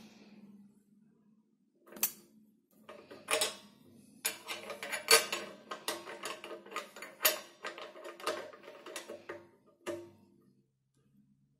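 Steel combination wrench clinking and tapping on the hex of a ball-lock post as the post is snugged down on a stainless Cornelius keg, the keg body ringing briefly after the sharper knocks. The run of quick metallic clicks starts about two seconds in and stops near the end.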